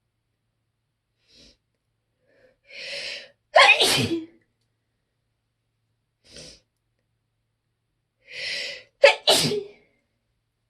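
Person's sneezing fit: two loud sneezes about five seconds apart, each after a drawn-in breath. The second comes as a quick double.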